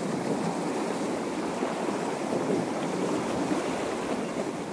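Sea surf washing against a rocky shore: a steady rush of water with no distinct breaks or splashes.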